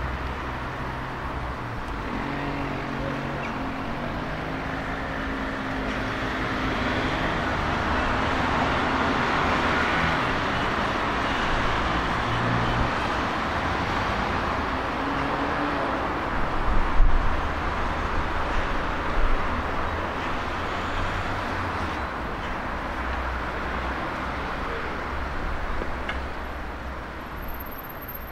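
Street traffic: motor vehicles running and passing, the noise swelling and then fading away, with a few short knocks a little past the middle.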